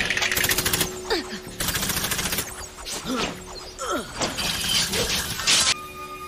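Anime battle sound effects: bursts of rapid crackling, crashing clatter with several falling swoosh sweeps, cutting off suddenly near the end.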